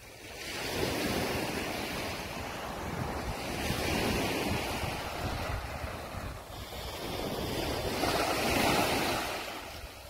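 Small sea waves breaking and washing up the shore, the surf swelling and ebbing about three times, with wind rumbling on the microphone underneath.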